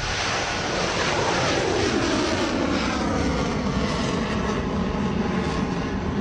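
Tomahawk cruise missile launching from a warship's deck, its rocket booster firing: a sudden, loud, steady roar. The roar sweeps downward in pitch as the missile climbs away.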